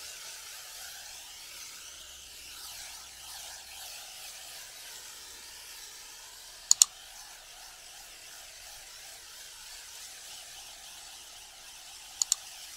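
Snow foam dwelling on a car body, fizzing and crackling steadily as the bubbles burst. Twice, about halfway through and again near the end, a sharp double mouse-click sound effect cuts in, louder than the fizz.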